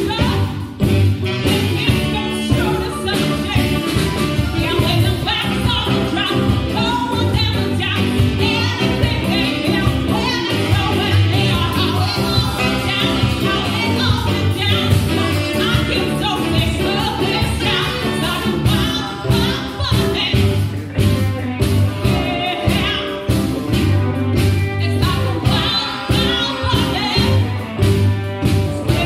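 Live band playing a song with a woman singing lead, backed by drum kit, congas, electric bass, electric guitar, keyboard and saxophone.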